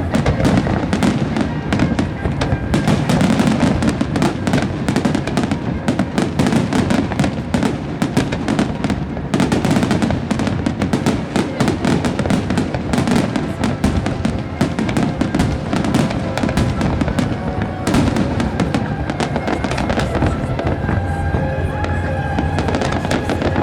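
Dense barrage of fireworks: a continuous rapid run of bangs and crackles with deep booms. Music from the pyromusical show plays along, its sustained tones coming through more clearly near the end.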